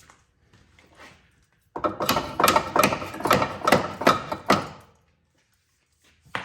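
Hammer tapping a bolt through a car's lower control arm mount to seat it: about seven even strikes over some three seconds, with a clatter between them, then a single knock near the end.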